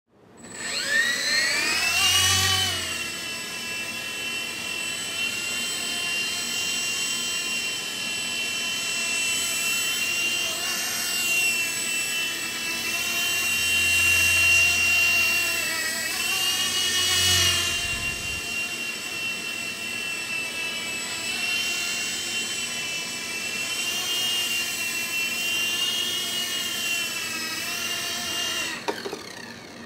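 E-flite Blade mSR micro RC helicopter's electric motor and rotor spooling up over the first couple of seconds, then a steady high whine that rises and falls in pitch with the throttle, with a few low rumbles. It cuts off suddenly near the end.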